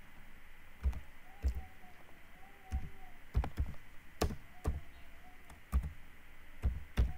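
Computer keyboard being typed on: about a dozen short key clicks with dull low thumps, unevenly spaced.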